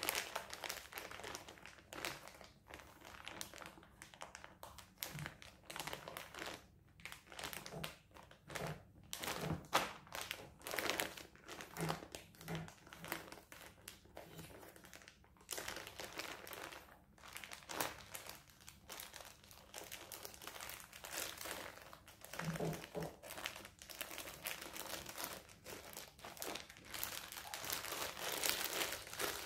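Clear plastic zip-lock bags crinkling irregularly as hands pick them up, shift them and press on them.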